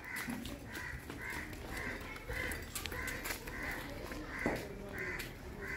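A crow cawing over and over in a steady series, about two caws a second.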